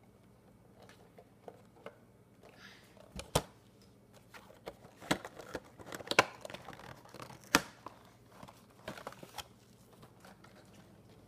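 Cardboard Funko Pop box being opened by hand: tearing and crinkling of the packaging, with scattered sharp clicks and knocks, the loudest between about three and eight seconds in.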